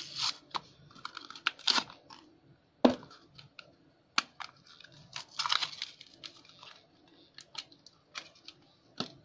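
Hands opening a small pin's packaging: rustling and crinkling with scattered light clicks, and one sharp tap about three seconds in.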